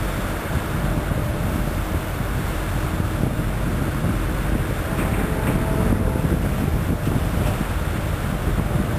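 Diesel locomotives at the head of a coal unit train approaching with a steady low rumble, mixed with wind buffeting the microphone.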